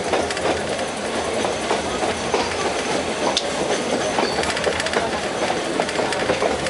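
Metre-gauge express train running, heard from inside the coach: wheels clattering over rail joints and crossover points, with a steady rumble and many short irregular clicks.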